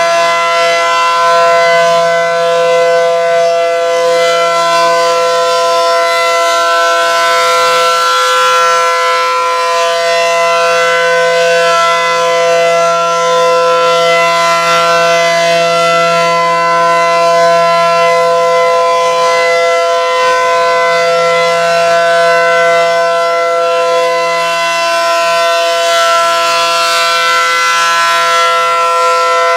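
ACA Allertor 125 outdoor warning siren sounding during its monthly test, a loud steady alert tone of several pitches together that holds its pitch, swelling and easing slightly in loudness.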